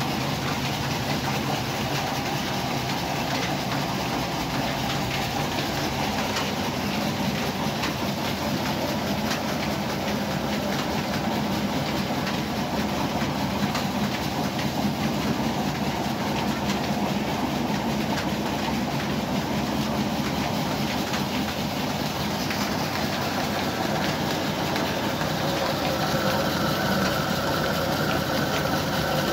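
Belt-driven flour mill running steadily and grinding grain fed from its hopper, a continuous mechanical hum with a dense rattle. A faint steady whine joins near the end.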